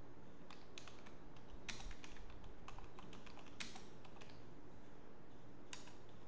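Computer keyboard being typed on: irregular key clicks, a few a second, with short pauses between groups of keystrokes.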